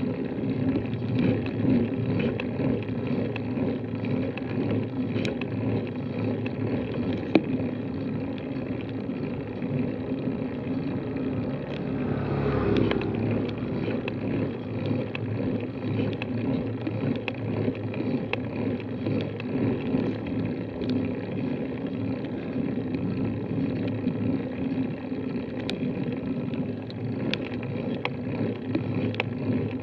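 Steady rumbling riding noise from a bicycle climbing slowly on a steep road, picked up by a bike-mounted camera, with scattered light ticks. The noise swells briefly about twelve seconds in, as a motorcycle approaches.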